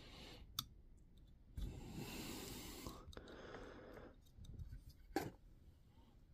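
Quiet handling of multimeter test probes on the battery's metal cell tabs: a few faint clicks, the loudest about five seconds in, with a soft noise of hands moving about two seconds in.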